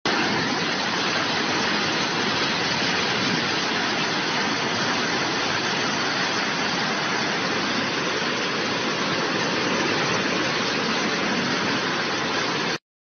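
Fast floodwater rushing in a steady, even torrent through a narrow channel between buildings, cutting off abruptly near the end.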